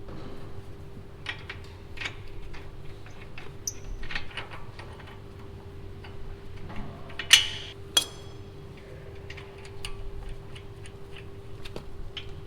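Hand tools and bolts clicking and clinking against the brake caliper while the caliper bolts are refitted, with two louder metallic clanks that ring briefly about seven and eight seconds in.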